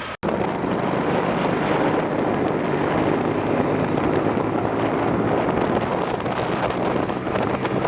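Wind rushing over a phone microphone with a steady low engine hum underneath, the sound of riding a motorbike.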